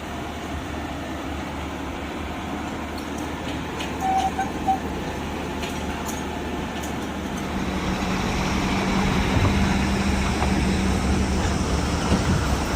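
A motor running steadily. A low hum comes in about two-thirds of the way through and the sound grows louder. A few short high beeps come around four seconds in.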